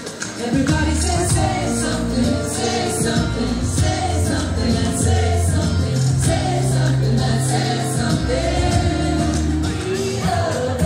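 A choir singing a song over an instrumental backing with sustained bass notes.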